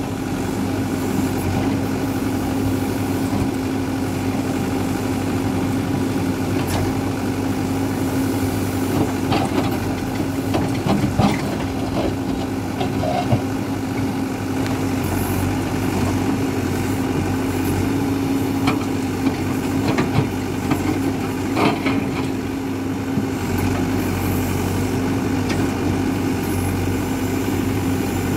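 Hidromek 102B backhoe loader's diesel engine running steadily while digging in hard ground, with scattered short knocks and scrapes of the bucket against the soil.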